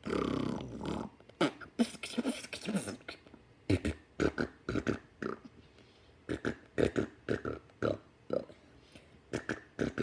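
A person making vocal sound effects with the mouth, like beatboxing: short irregular bursts and clicks, the loudest at the very start.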